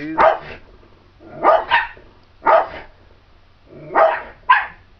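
A dog barking in short single and double barks, about six in all, a second or so apart: alert barking at another dog it has spotted outside.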